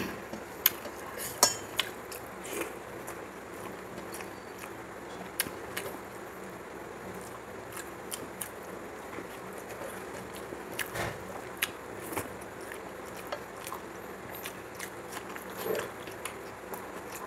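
Eating with the hand from a metal plate: fingers mixing rice and curry against the plate, with chewing and mouth smacks. These come as scattered short clicks and smacks over a quiet background.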